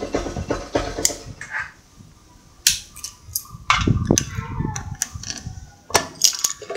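Honda Mega Pro's single-cylinder engine idling, then switched off, dying away about two seconds in. A series of sharp clicks and knocks follows as the ignition key is pulled and put to the metal fuel-tank cap lock.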